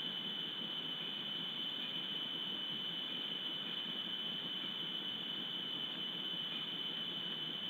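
A steady, high-pitched whine over a constant hiss that never changes. It is the electronic self-noise of a wildlife camera's microphone.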